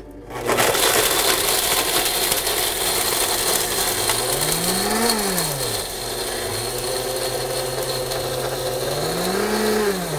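Blendtec blender starting about half a second in and running at high speed, grinding liquid-nitrogen-frozen ice cream into a powder. Its pitch rises and falls twice.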